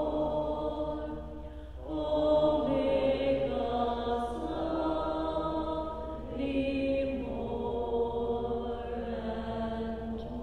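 Slow sacred chant-like music, long held notes in phrases that break briefly about two seconds in and again about six seconds in.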